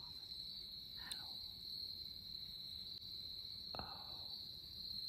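Steady high-pitched insect chorus drone, with two faint breathy sounds about a second in and just before four seconds.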